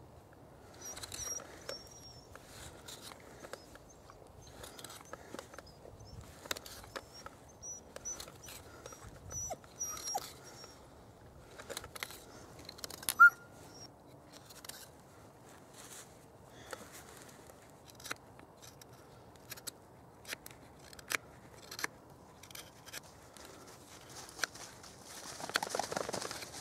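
Knife blade cutting and scraping into the end grain of a log as it is carved and hollowed out: irregular short cutting strokes, with one sharp, louder click about halfway through and a denser run of scraping near the end.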